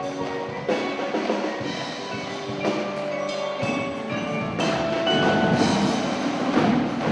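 Indoor drumline performing: the front ensemble's marimbas and other mallet keyboards play held pitched notes, with hits from the marching drums.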